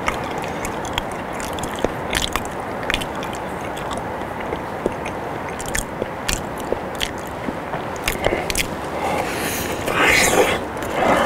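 Close-miked chewing of a soft boiled potato, with many short wet mouth clicks and lip smacks. About ten seconds in, a big bite brings a louder burst of mouth sounds.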